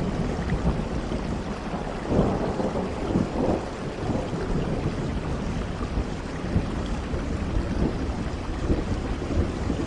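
Steady heavy rain, with a low rumble underneath and a louder swell about two to three and a half seconds in.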